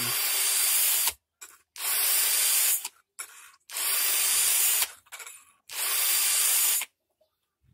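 Cordless drill spinning a sharpening bit against a chainsaw chain's steel cutters, grinding tooth by tooth in four short passes of about a second each with brief pauses between.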